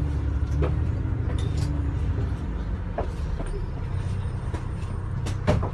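Double-decker bus heard from inside on the upper deck while moving: a steady low engine and road rumble, with scattered small clicks and rattles and a sharper knock about five and a half seconds in.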